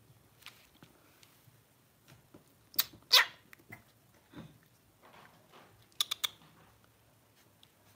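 Lhasa Apso puppy giving a short, sharp yip about three seconds in, the loudest sound here. A few quieter snuffles follow, then three quick clicks a little after.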